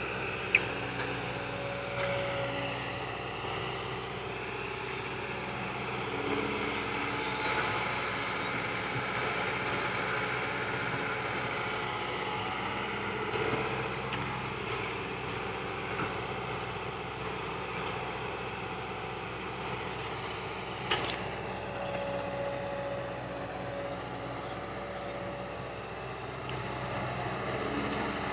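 Hydraulic excavator's diesel engine running steadily while digging, its load and pitch shifting a little as it works, with a sharp knock about three quarters of the way through.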